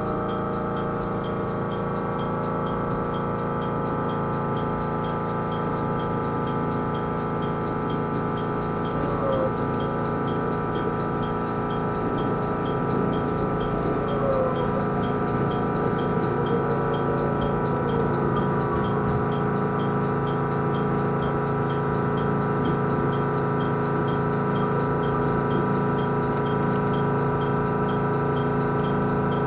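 E129 series electric train standing at a halt, its onboard equipment humming with many steady tones, over a light, even ticking about three times a second.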